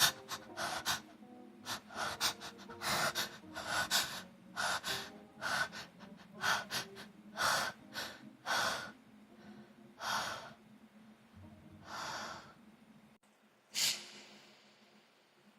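A young woman's repeated sharp gasping breaths, short hitching intakes about one every half second to one second, the build-up before an allergy sneeze. One short, sharp burst stands out near the end.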